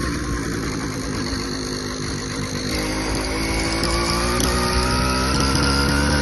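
Motorized bicycle's small engine running, its pitch climbing slowly from about halfway through as it speeds up, with a thin high whine above the engine note. This is the strange noise the owner is asking about.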